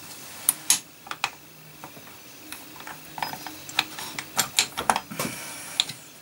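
Steel gears and shafts of a motorcycle gearbox clinking and clicking as they are turned by hand in the open crankcase to engage a gear. The metal clicks come irregularly, more densely from about three seconds in.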